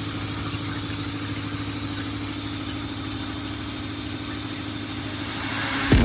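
Fuel nozzle flow-test bench running: a steady machine hum under a high hiss as test fluid sprays from the row of nozzles.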